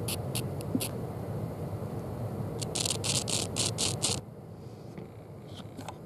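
Crackling, scratching static in an earbud as its TRS plug is touched to the nails of a potato battery, testing the left channel of the repaired earbud. There are a few crackles early, then a quick run of them around three to four seconds in, over a low buzz that drops away after about four seconds.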